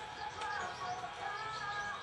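Soft background music with several held, gently gliding notes sounding together.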